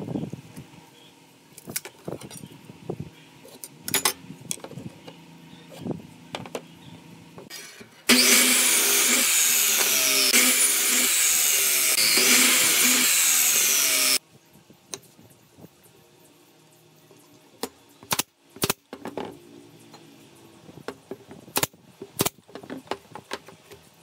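Electric miter saw running and cutting through a wooden board for about six seconds, starting abruptly about eight seconds in and stopping just as abruptly. Before and after, light clicks and knocks of wood and tools being handled on a workbench.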